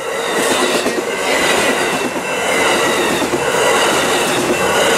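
Passenger train rolling past at slow speed, its wheels rumbling and clacking on the rails with a faint high squeal.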